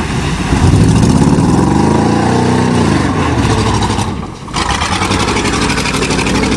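A 1988 Chevrolet pickup's 305 V8 revving hard through the mud. Its pitch climbs and then falls over the first few seconds, and it then runs on steadily at high revs. To the onlookers it already sounds like it is missing (misfiring).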